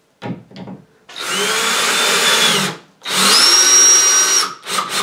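18-volt cordless drill driving a screw through a steel L bracket into a wall anchor: two runs of about a second and a half each, the second higher in pitch, with a few short bursts before and after.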